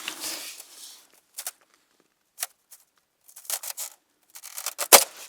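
Thin ice crunching and cracking underfoot in irregular bursts, with the loudest sharp crack near the end as it breaks.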